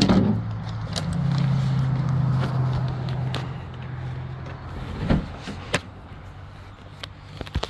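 Knocks, clicks and clatter from an Echo DPB-5800T battery backpack blower being handled and strapped on while it is still switched off. Under them runs a steady low mechanical hum that fades out about five seconds in.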